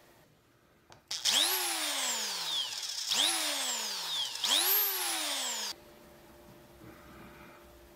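Electric drill with a twist bit drilling into a plastic pipe: three short trigger pulls, the motor's whine rising quickly and then sinking slowly each time, the third cut off suddenly. A faint steady hum follows.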